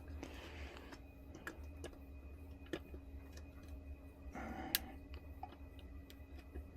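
Scattered light clicks and taps of small furnace parts being handled, over a steady low hum. A short rustle comes about four and a half seconds in, ending in the loudest click.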